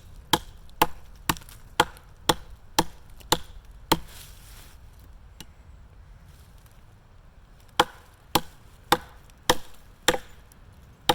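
A 52100-steel tomahawk chopping into a tree branch. Sharp strikes come about two a second, a run of about eight, then after a pause of a few seconds another run of about six.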